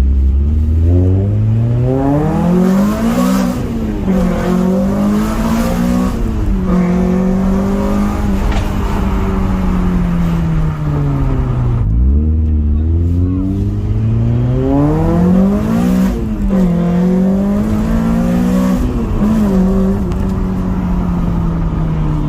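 Honda Prelude H22A four-cylinder engine, fitted with Skunk2 high-lift cams and cat-back exhaust, accelerating hard twice. Each time it revs up through two gears, with a sharp drop in pitch at each upshift, then settles into a steady, slowly falling drone.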